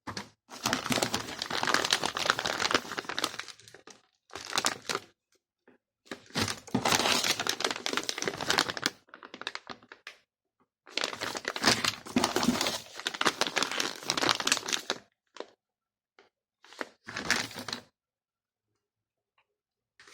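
Plastic packaging crinkling as it is handled, in four bouts of a few seconds each with short pauses between.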